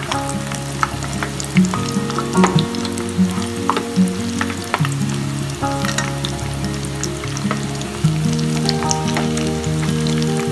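Kilikkood nests deep-frying in hot oil: a steady sizzle full of small, quick crackles. Steady held musical notes run underneath.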